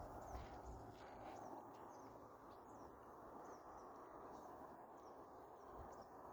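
Faint outdoor ambience: small birds chirping quickly and softly over a low steady hiss.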